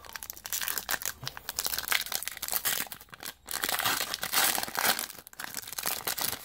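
A plastic foil trading-card pack wrapper being torn open and crinkled by hand, in dense crackly spurts with two short pauses.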